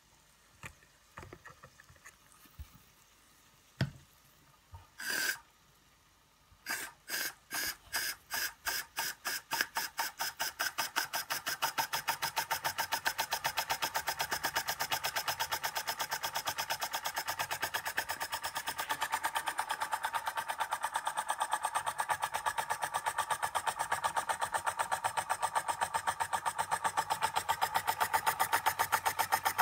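L.J.S.M. toy oscillating steam engine starting up: a few light knocks and a short hiss, then exhaust puffs begin about seven seconds in, slow at first and quickening within a few seconds into a fast, even chuffing that keeps getting louder.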